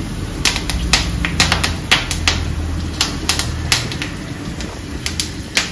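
Curry leaves crackling and spitting in hot oil: irregular sharp pops, a few a second, over a low steady hum.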